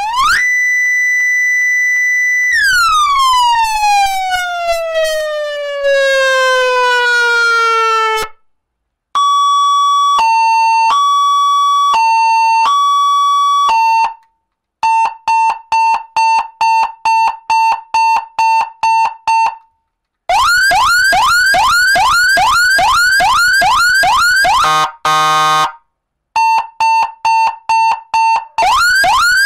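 Cheap 100-watt seven-tone electronic vehicle siren blaring through its plastic horn speaker, switched from tone to tone. First comes a wail that rises, holds, then slowly falls. Next are a two-note hi-lo alternating about every half second, a steady pulsing beep about two or three times a second, and a fast yelp sweeping up about three times a second, with a brief different tone near the end before the beeping and yelp return.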